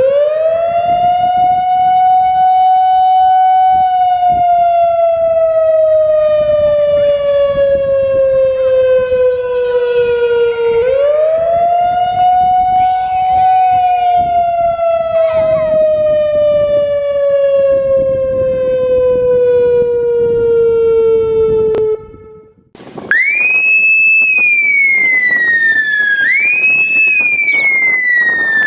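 Whelen WPS-2740 electronic outdoor warning siren wailing: its tone rises quickly, holds, then slowly falls, twice over. After a brief break near the end it returns pitched up far higher, a sound-variation edit, rising and falling twice in quicker cycles.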